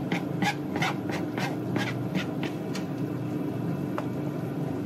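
Cooking at a frying pan on the stove: quick soft rhythmic strokes, about three a second, for the first two and a half seconds, over a steady low hum, with a single click about four seconds in.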